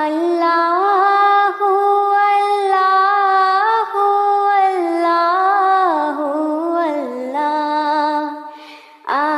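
A single voice singing a Bangla Islamic gojol unaccompanied, drawing out long, ornamented held notes. The phrase dies away near the end and the next one starts just after.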